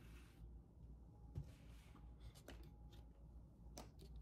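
Near silence: room tone with a few faint clicks and a brief soft rustle as a cardboard makeup box is handled.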